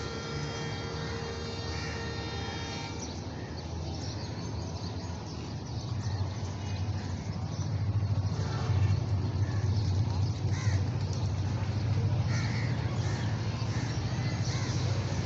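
Low rumble of an approaching ZCU-30 diesel-electric locomotive, growing louder from about six seconds in. Crows caw now and then over it.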